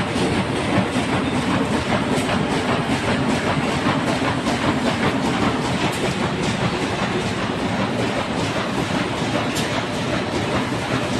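Automatic corrugated-carton printer, folder-gluer and baler line running: a steady, dense mechanical clatter and rumble, with occasional faint ticks.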